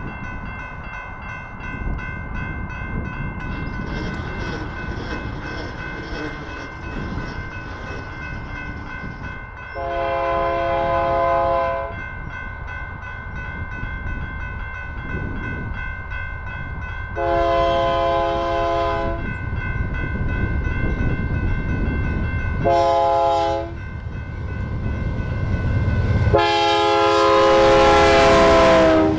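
Approaching freight locomotive sounding its multi-chime air horn in the grade-crossing pattern of long, long, short, long, over the low rumble of the train. The last long blast is the loudest as the train draws near.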